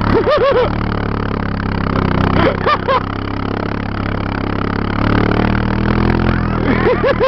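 Four-wheeler (ATV) engine running steadily, its pitch rising for a while about five seconds in, with short whooping shouts near the start, about two and a half seconds in, and near the end.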